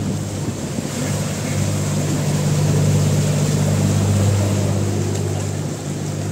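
Open canal tour boat's motor running with a steady low hum as the boat cruises, swelling louder through the middle and easing near the end.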